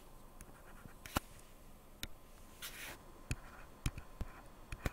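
Stylus handwriting on a pen tablet: a scattering of sharp light taps, about six, with a brief soft scratch of the pen tip a little past halfway.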